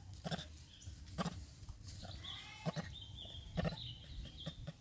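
Macaques giving a few short, high squeaky calls in the second half, over scattered crunches and clicks of dry leaves being moved.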